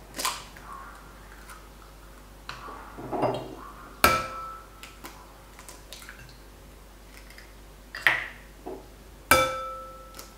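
Eggs knocked against the rim of a ceramic bowl to crack them, three sharp knocks, the later two leaving the bowl ringing briefly. Between the knocks come quieter crackles as the shells are pulled apart and the eggs drop in.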